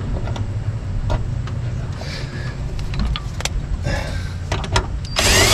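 Cordless drill running in one short loud burst near the end as it is pressed into the car's firewall, its pitch rising and falling. Before it come a few light clicks and knocks of handling the tool and part, over a steady low hum.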